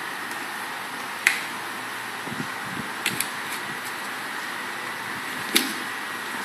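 A few sharp, short taps on a hollow plastic step stool: a loud one about a second in, a quick pair near the middle and another loud one near the end. Under them run a steady background hiss and a few soft low thuds.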